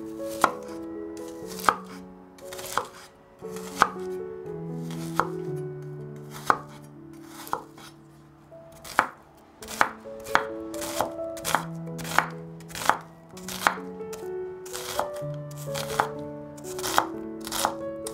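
Kitchen knife cutting through food onto a cutting board in single strokes, about one a second, coming a little faster in the second half.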